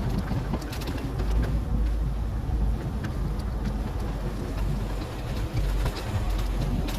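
Steady low engine and road rumble of a vehicle, with scattered light clicks and rattles over it.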